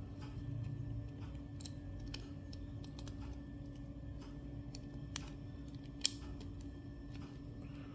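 Small sharp clicks and taps of fingers handling and prying at an opened smartphone's circuit board and plastic frame, scattered and irregular, the loudest about six seconds in, over a steady low hum.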